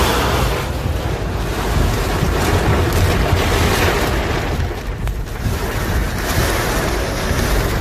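Steady rush of heavy rain with a low wind rumble on the microphone, during a thunderstorm.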